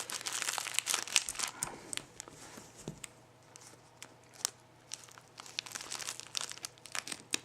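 Taped plastic mailing package being crinkled and torn open by hand: irregular rustling and crackling, thinning out briefly past the middle, with a sharp crack about four and a half seconds in.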